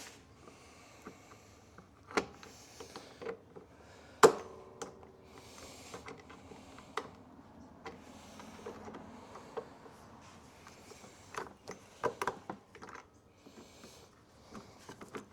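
Pliers and small metal parts clicking, clinking and scraping as a cotter pin is worked out of a lawn mower's wheel axle. There is one sharp metallic clank with brief ringing a little over four seconds in.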